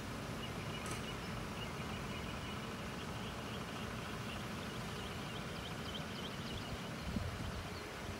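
Outdoor ambience: a steady low rumble, with faint short high chirps through the middle.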